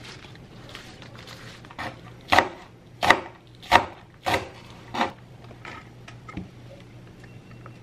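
A kitchen knife chopping green onions on a cutting board: about five sharp chops roughly two-thirds of a second apart, then a few lighter taps.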